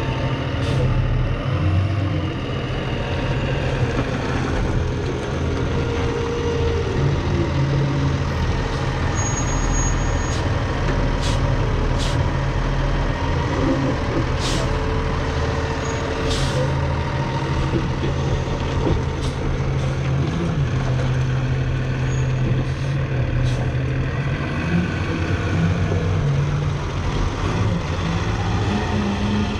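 Heavy diesel engine of hay-loading equipment running steadily, its pitch rising and falling now and then as it works. Several short, sharp sounds come over it about halfway through.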